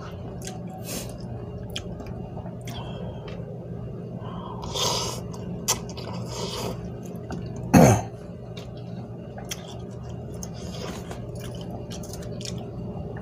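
A person eating instant cup noodles: chewing and slurping, with a noisy slurp about five seconds in. The loudest sound comes near eight seconds in: a short vocal sound that slides down in pitch.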